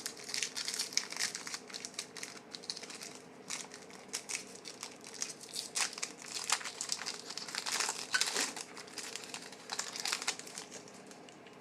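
Trading-card pack wrapper crinkling as it is handled and opened, a dense run of irregular short crackles that dies away near the end.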